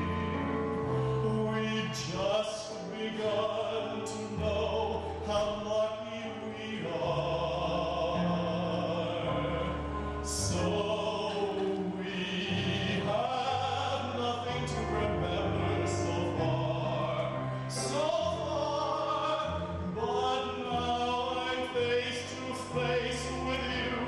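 A man singing a slow show-tune ballad into a microphone, with a wavering vibrato on his held notes, over an accompaniment of long sustained chords.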